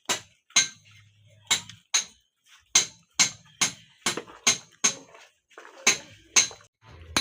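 A series of sharp, ringing clinks of hard objects striking, about two a second, with a short pause about two and a half seconds in.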